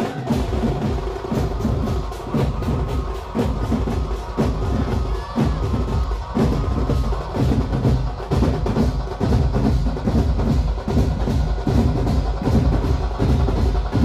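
Dhumal band party playing loud, percussion-heavy music: a fast, even drum beat with heavy bass drum and electronic drum-pad (Actopad) hits.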